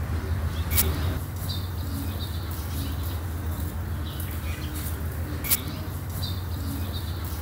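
Steady low hum of background noise, with two sharp clicks, about a second in and again past the middle, from acrylic drop beads and thin wire being handled and twisted. Faint high bird chirps can be heard in the background.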